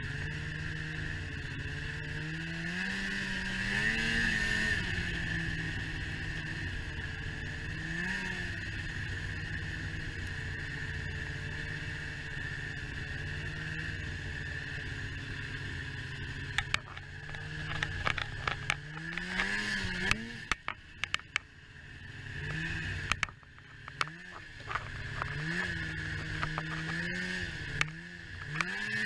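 Snowmobile engine running under throttle, its pitch rising and falling as the rider speeds up and eases off, over a steady high whine. In the second half come many sharp clacks and knocks, and the engine drops away briefly twice as the throttle is let off.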